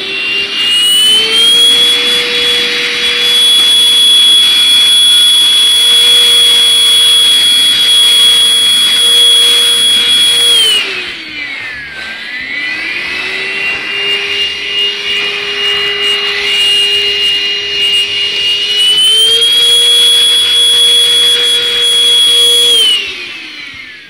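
Deerma cordless handheld vacuum cleaner running with a steady high motor whine as it sucks dust from sofa corners. It spins up at the start, winds down and back up about halfway through, steps up in pitch later, and winds down near the end.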